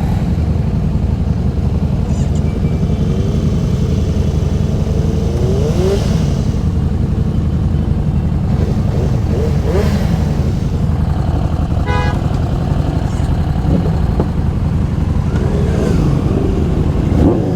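Superbike engines with full-system exhausts running and revving, several rising and falling revs over a steady low engine note. A short beep comes about twelve seconds in.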